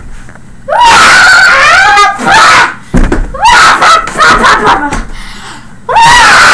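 High-pitched human screaming, loud enough to distort, in several long shrieks broken by short gaps, with a choppier stretch in the middle and another shriek starting near the end.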